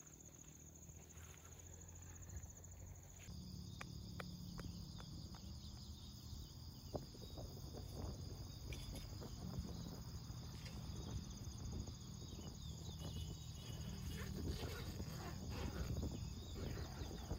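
Night insects, crickets, trilling steadily in a high thin tone, with a lower trill taking over about three seconds in. Over it come light rustling and soft knocks of someone crawling into and shifting about inside a nylon dome tent, growing busier near the end.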